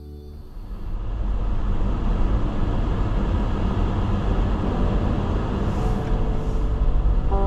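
Car driving on a snow-covered road, heard from inside the cabin: a steady low rumble of engine and tyres that fades in within the first second.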